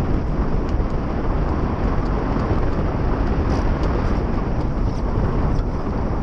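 Steady wind noise buffeting the microphone of a masthead camera on a Mach 2 Moth sailing on its foils: a loud, even, deep rush with no breaks.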